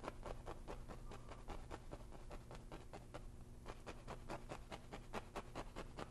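Paintbrush tip dabbing and scraping lightly on stretched canvas: many quick soft taps, several a second, with a short pause a little past the middle.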